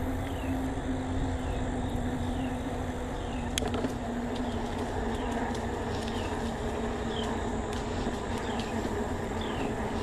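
Electric bike motor humming steadily at one pitch over wind and tyre rumble while riding. Short, faint high chirps falling in pitch repeat about once a second, and there is a single click about three and a half seconds in.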